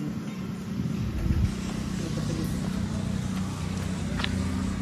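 Motor vehicle engine running steadily in road traffic, a low hum that grows louder about a second in.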